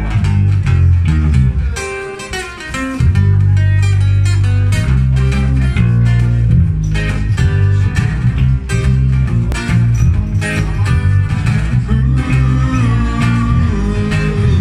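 Acoustic guitar and electric bass guitar playing an instrumental song intro live, with a prominent bass line under the guitar. About two seconds in the playing drops back briefly, then comes in full again about a second later.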